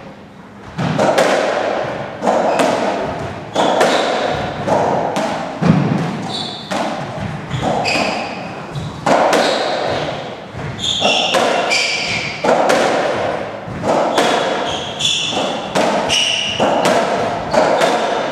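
Racketball rally on a squash court: the ball struck by racquets and smacking off the walls about once a second, echoing around the court, with short squeaks of shoes on the wooden floor between shots.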